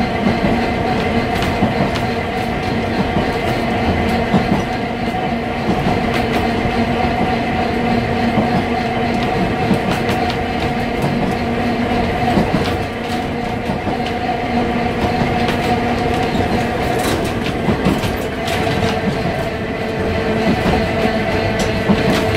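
Manx Electric Railway tram 20 running along the line, heard from inside the wooden saloon: a steady hum from the car's motors and running gear, with the wheels clicking and knocking over the rail joints.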